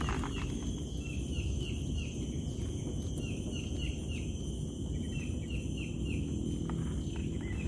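A bird calling a long series of short, downward-sliding notes, about two a second, over a steady low rumble and a thin high whine.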